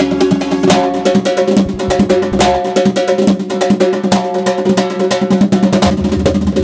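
Azerbaijani folk dance music: fast, dense drumming under a held melody line.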